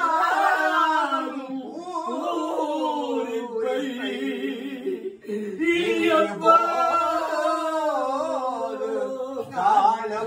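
A woman's unaccompanied wailing lament, a Tamil mourning song of the oppari kind, sung in long wavering phrases broken by short pauses.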